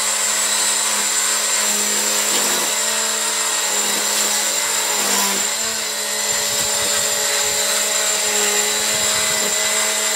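AEG 18V brushless cordless line trimmer running, a steady electric whine with a high tone on top. Its pitch dips briefly a few times.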